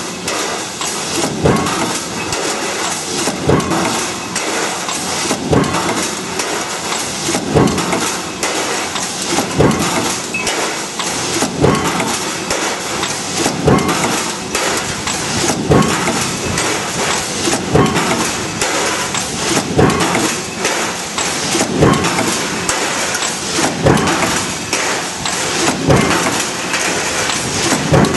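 Power press stamping sheet metal, its die striking about once every two seconds over a steady din of shop noise.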